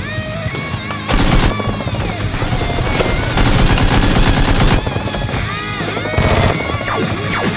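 Several bursts of rapid automatic gunfire, a sound effect, over loud background music.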